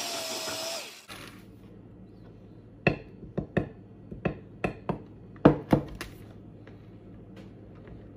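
Rival electric hand mixer running with a steady whine, switched off about a second in. Then about nine sharp knocks, glass against glass, as flour is poured from one glass measuring cup into another.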